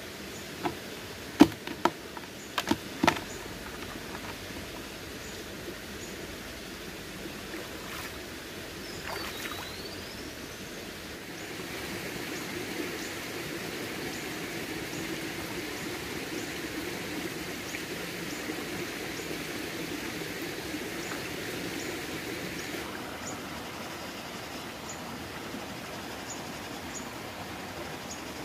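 Shallow rocky stream running steadily, the water noise growing louder about midway and easing again later on. A few sharp knocks come in the first three seconds, as a plastic basin bumps against the rocks.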